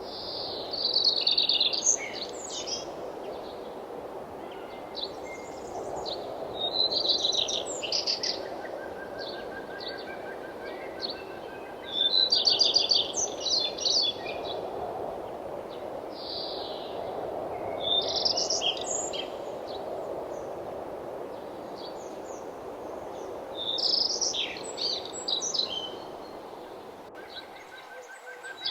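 Songbird singing short, quick, trilling phrases about every five to six seconds, over a steady background rush.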